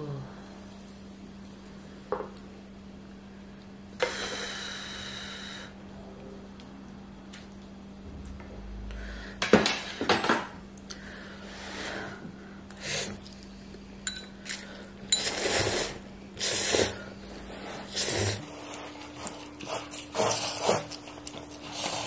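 Eating utensils clinking and scraping against dishes during a ramen meal, with a run of short, noisy bursts about once a second in the second half.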